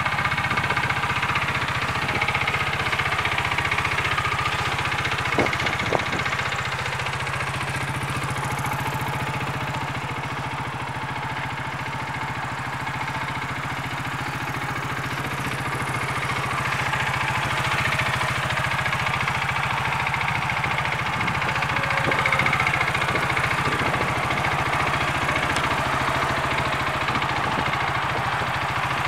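SSR Bison 400U utility vehicle's engine idling steadily, with a couple of faint clicks about five seconds in.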